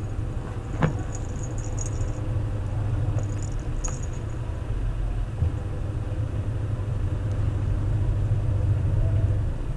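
Washing machine in its spin cycle, a steady low rumble. A sharp click sounds about a second in, with a few faint high crackles in the next few seconds.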